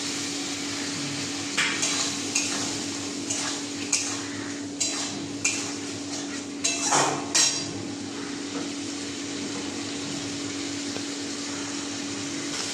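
Metal spatula scraping and clinking against a metal kadai while food is stirred, with a run of sharp clinks in the first half, over a steady hiss and hum.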